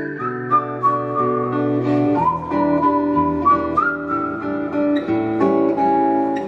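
Acoustic guitar playing held chords under a high, wordless melody line that glides and steps between notes, the instrumental close of a live acoustic song.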